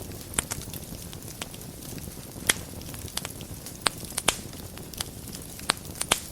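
Wood fire burning in a fireplace: a steady low rumble of flame with irregular crackles and a few sharper pops.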